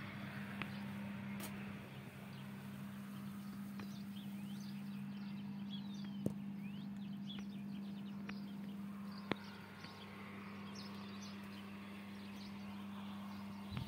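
Case 570ST backhoe loader's diesel engine idling with a steady low hum, birds chirping faintly above it and a few sharp clicks.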